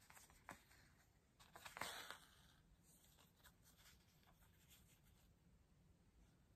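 Faint scratch and rustle of an embroidery needle and thread being drawn through fabric by hand. The pull about two seconds in is a little louder, with small clicks around it.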